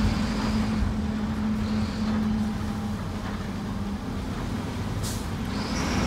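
Bus engine and road noise heard from inside the cabin while driving: a steady low drone, with a short hiss about five seconds in.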